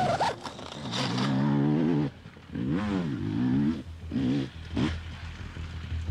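Dirt-bike engine revving in several bursts, its pitch rising and falling with the throttle, with short dips between the revs.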